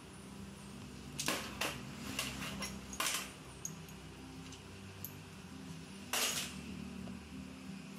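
Metal transmission parts clinking as they are handled on a steel bench: a few sharp clinks in the first half, and a longer clatter about six seconds in.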